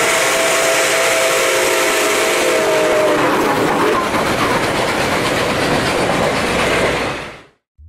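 Steam locomotive's chime whistle blowing a chord of several tones for about three seconds, sagging in pitch as it dies away. Then comes the loud steady rolling noise of the locomotive and its passenger cars passing close by, fading out near the end.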